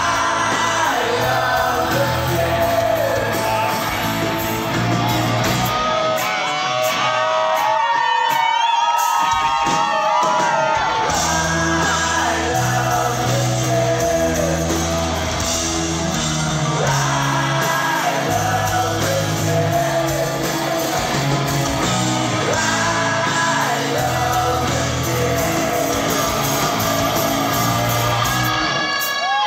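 Live rock band playing loudly through a hall PA, electric guitars and a heavy low end, with singing and shouted vocals.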